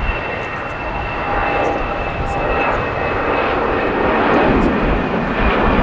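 Passenger jet aircraft engines running: a dense rushing noise with a steady high whine through it, growing gradually louder.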